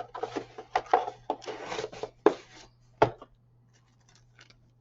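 Plastic model kit parts and their bags being handled: rustling and scraping with several sharp clacks, stopping about three seconds in.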